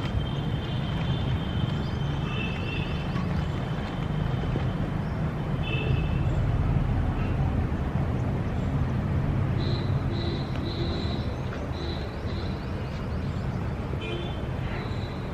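City ambience: steady low traffic rumble, with birds chirping in short high notes now and then, including a quick run of them about two-thirds of the way in.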